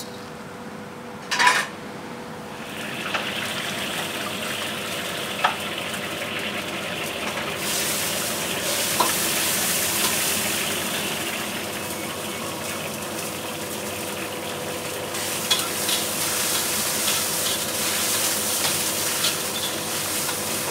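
Cooking in a wok on a gas stove: a steady sizzle with scattered sharp clinks of metal utensils against the pan, after one loud clack about a second and a half in.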